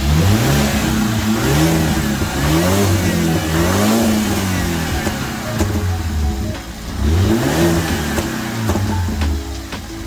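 BMW E93's engine running with its new high fuel pressure sensor fitted, revved in several short blips, its pitch rising and falling back each time over a steady idle.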